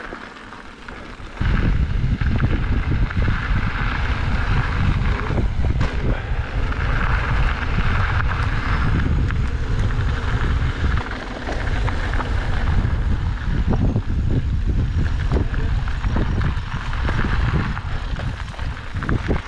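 Wind buffeting the microphone and mountain bike tyres rumbling over a dirt trail as the bike rolls at speed. It starts abruptly about a second and a half in, with scattered rattles and knocks from the rough ground.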